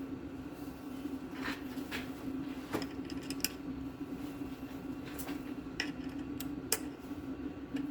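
Scattered light metallic clicks and clinks of hand tools and bolts being handled, about half a dozen, over a steady low hum.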